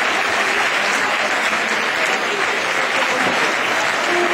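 Audience applauding, a dense, steady clatter of many hands.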